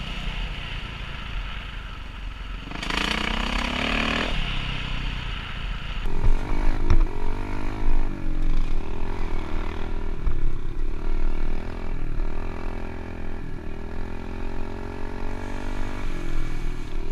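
Four-stroke Kawasaki dirt bike engine running while riding a rough dirt trail, revving up about three seconds in, then louder and rising and falling with the throttle from about six seconds on, with a few knocks from the bumpy ground.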